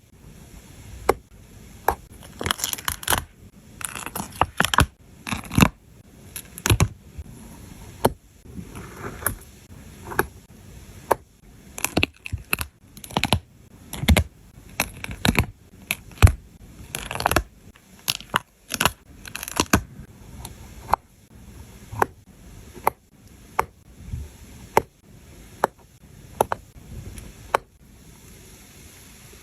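Close-up crafting sounds of sticker and paper handling: many sharp taps and clicks with short rustling and scraping passages. Near the end they stop, leaving a faint steady hiss.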